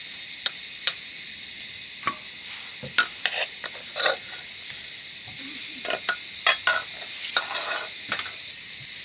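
Scattered clinks and scrapes of eating from dishes, over a steady high-pitched hiss.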